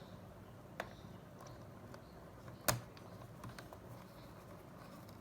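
A few light clicks and taps from handling a laptop's case parts and screws during reassembly, the loudest about two and a half seconds in.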